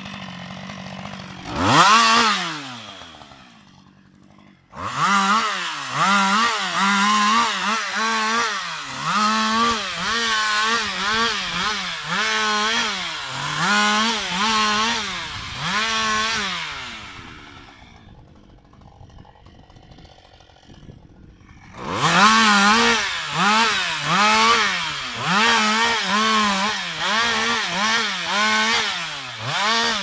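Husqvarna 560XP two-stroke chainsaw limbing a fallen tree, revved to full speed in short bursts about once a second as each branch is cut and dropping back between them. A few seconds past halfway it idles quietly, then the bursts resume.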